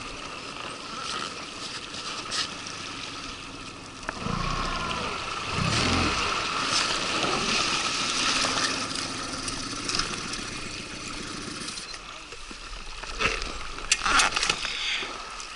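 Small outboard motor on an inflatable boat running steadily as the boat moves along the river, with water rushing past the hull. It drops in level near the end, followed by a few sharp knocks.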